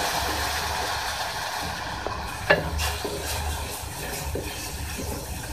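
Water sizzling as it hits hot ghee-roasted semolina in a metal pan, the hiss fading over the first two seconds. A wooden spatula stirs and scrapes the pan, with a sharp knock about two and a half seconds in.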